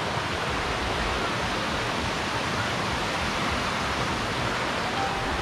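Steady hiss of a rocky stream running down small cascades.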